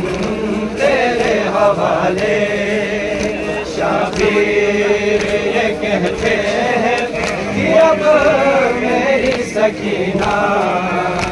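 A group of voices chanting a Kashmiri noha, a Muharram mourning lament, together, several voices overlapping without instruments.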